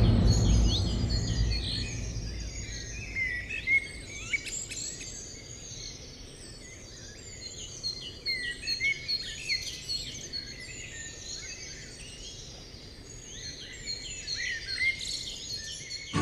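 Several songbirds chirping and singing, with short quick phrases. A deep low boom fades away over the first two seconds.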